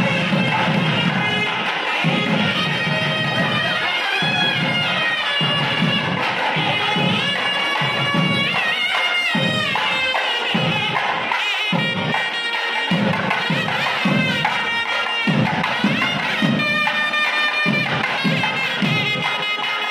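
South Indian temple procession music: shrill double-reed pipes play an ornamented melody with sliding notes over a steady drone, with drums beating underneath.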